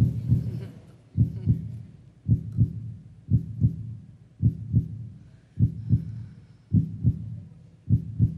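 Heartbeat sound effect: steady lub-dub double thumps repeating about once a second, a suspense cue for the decision moment.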